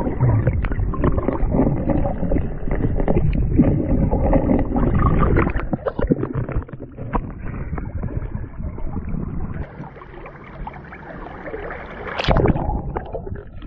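River water churning and splashing around a camera held at the surface, muffled and gurgling while it is under water. About twelve seconds in there is a brief, brighter splash as it breaks the surface.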